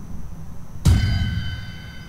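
A single sudden clang about a second in, ringing on with several tones that fade over about a second, over a low steady rumbling drone.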